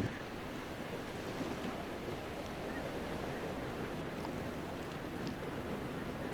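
Steady snowstorm wind blowing, with a few faint ticks in it.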